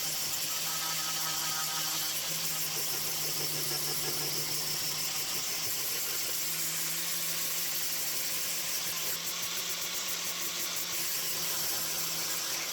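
Angle grinder running continuously while grinding down cured fiberglass: a steady motor hum under a dense hiss from the disc on the material.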